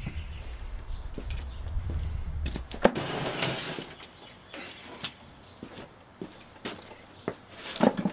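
A jobsite table saw on a wheeled folding stand being handled and pulled out. A low rumble runs for the first three seconds, then comes a sharp knock, then scattered clicks and clanks of the stand's metal frame, with a quick cluster of knocks near the end.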